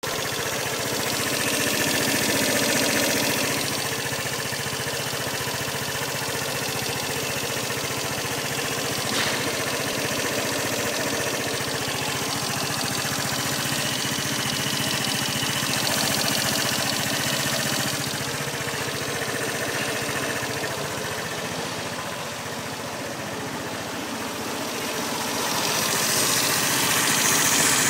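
A steady mechanical drone like an engine running, with a broad hiss over it. It swells in loudness twice, near the start and near the end, with one short click about nine seconds in.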